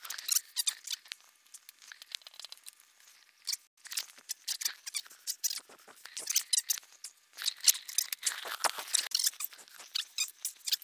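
Close-up handling noise: an irregular run of small clicks, scratches and rustles from hands working on parts, with a short break about three and a half seconds in.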